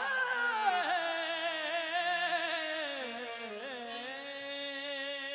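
Qawwali singing: a man's voice draws out a long wordless melisma that slides down and then settles on a held note, over the steady reedy chords of a harmonium, easing down in level near the end.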